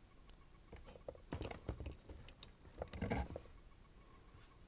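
Faint handling noise: a scatter of light clicks and rustles, busiest between about one and three and a half seconds in.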